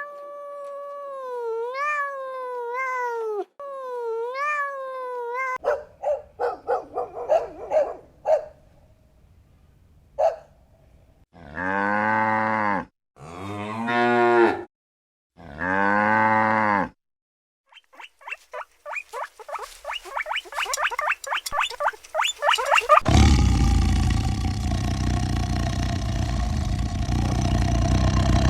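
Cattle mooing: three long, low moos in a row about halfway through, after a higher, wavering call at the start. Near the end, a loud rough noise takes over.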